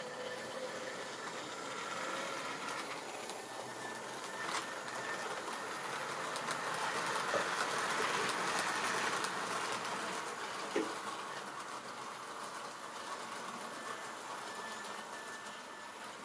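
A model railway train rolling along the track, its running noise growing louder as it passes close by around the middle and then fading away. A sharp click a little over four seconds in and another near eleven seconds.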